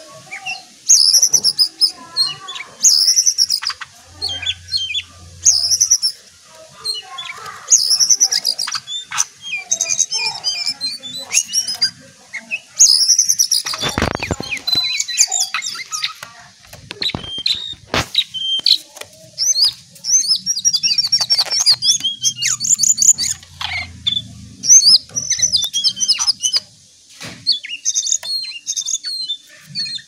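Caged jongkangan (cingcoang coklat) singing a long run of quick, high-pitched whistled phrases and trills, varied and nearly unbroken. A couple of sharp knocks come about 14 and 18 seconds in.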